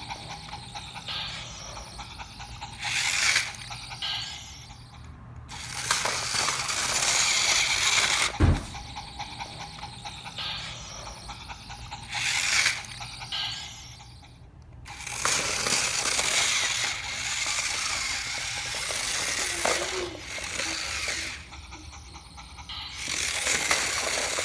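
Motorized toy train running on plastic track: a small geared motor whirring and wheels clattering, growing louder and fainter by turns as it goes round.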